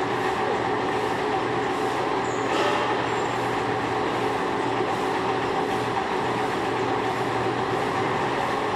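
Machine tool running steadily during metal machining: a constant hum with several steady tones, and a brief high squeal about two and a half seconds in.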